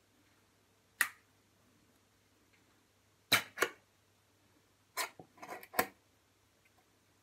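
A ring-pull tuna can being opened by hand: a sharp metallic click about a second in, two quick clicks a little past three seconds as the lid is peeled back, then a short run of clicks and crackles as it tears free.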